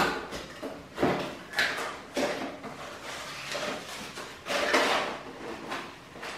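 Cardboard box being opened and handled, its flaps and inner packaging scraping and rustling in several short bursts, with a sharp tap at the start.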